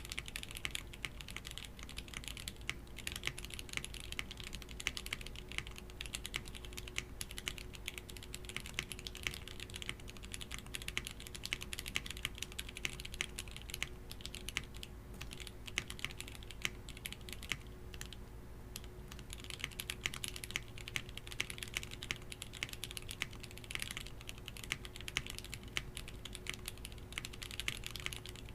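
Fast typing on a Portico65 polycarbonate gasket-mounted 65% mechanical keyboard with lubed Jwick T1 tactile switches on an FR4 plate and milk keycaps: a dense, irregular stream of keystrokes, sparser for a few seconds past the middle, with a faint steady hum beneath.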